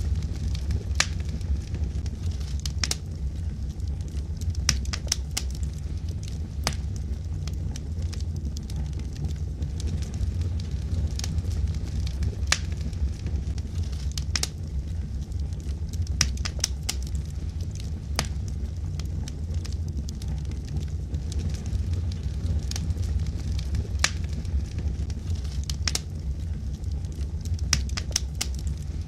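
Wood logs burning in a fireplace: a steady low rumble of flame, with frequent, irregular crackles and pops.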